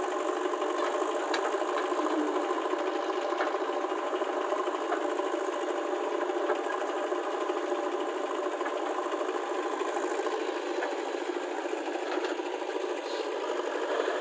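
Heavy diesel engine running steadily at an even speed.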